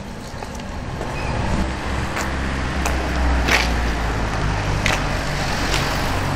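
Street traffic: a car's engine rumble that grows louder about a second and a half in, with a few short sharp clicks over it.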